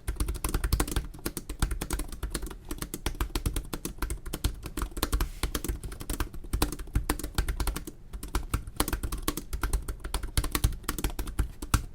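Fast, continuous touch typing on the HP Spectre x360 (early 2017) laptop keyboard, a dense run of key clicks with a couple of brief pauses.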